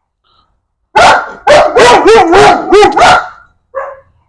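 Micro bully dog barking: a loud bark about a second in, then a quick run of about five barks with a bending pitch, and one softer bark near the end.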